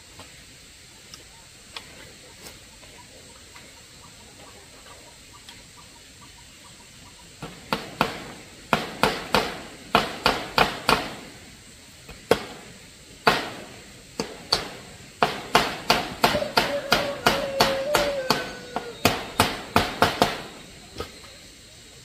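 Hammer driving nails into the wood of a rabbit cage: runs of sharp strikes, about two to three a second with short pauses between runs, starting about seven seconds in and stopping near the end. A faint steady hiss lies underneath.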